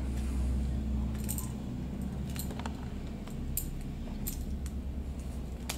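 Screws and small metal parts clicking and clinking as loosened screws are taken out and a small galvanized fitting is removed, a string of separate sharp clicks over a steady low hum.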